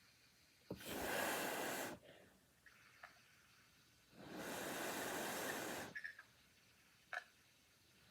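A sleeping man snoring: two long, breathy snores, each over a second long, about three and a half seconds apart.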